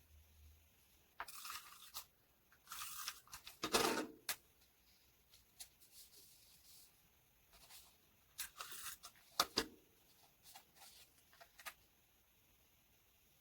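Paper being torn and handled for a journal spread: a few short rips, the loudest about four seconds in, with scattered small clicks and taps.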